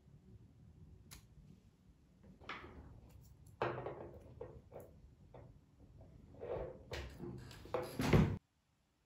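Handling noises at a bench: light clicks, then irregular rustles and knocks as a nickel strip and a cylindrical lithium-ion cell are picked up and set against the electrode pen of a homemade spot welder, loudest just before the sound cuts off suddenly near the end.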